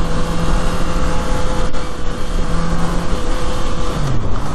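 A Honda CBR650R's inline-four engine running at a steady pitch on the move, over a steady rush of wind noise. Near the end the engine note drops quickly and settles at a lower steady pitch.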